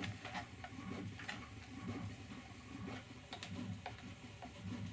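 Hand screwdriver driving a short screw through a plastic lid into a 3D-printed plastic part: faint, irregular small clicks and ticks, over a steady low hum.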